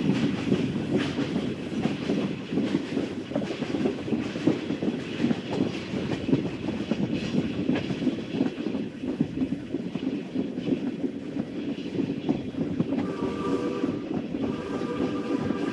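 Steam train running with a steady, rhythmic clatter, its whistle sounding a chord near the end, breaking off briefly and then resuming.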